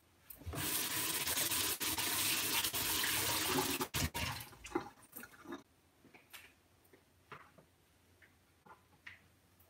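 Kitchen tap running in a steady hiss for about four seconds, then shut off. A few light clicks and knocks follow.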